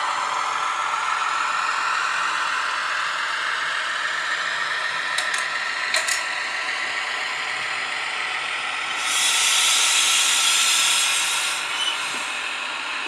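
Kaluga shunting locomotive running, with a faint whine that rises slowly in pitch over the first six seconds. A few sharp clicks come about five to six seconds in, then a burst of hiss lasts about two and a half seconds near the end.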